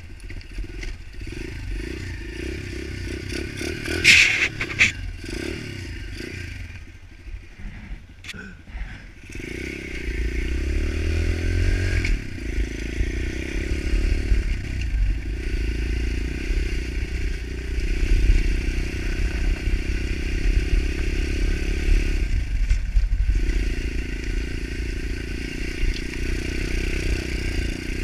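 Pit bike engine running as it rides over a gravel track, with a sharp clatter about four seconds in. The engine eases off briefly, then runs steadily on the throttle with a heavy low rumble.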